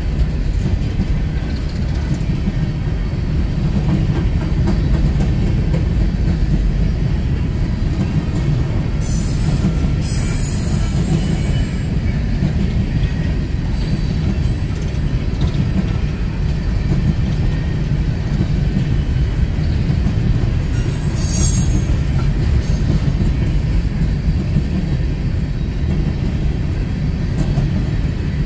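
An empty coal train's cars rolling past with a steady low rumble. Short, high wheel squeals break in about nine seconds in and again about twenty-one seconds in.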